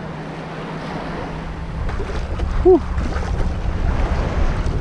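Wind buffeting the microphone over water sloshing and splashing around a kayak being brought through shallow water, the rumble getting stronger about halfway through.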